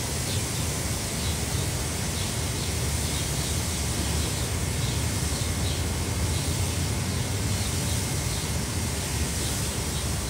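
Steady rushing noise, heaviest in a low rumble, of wind blowing across the microphone at a beach.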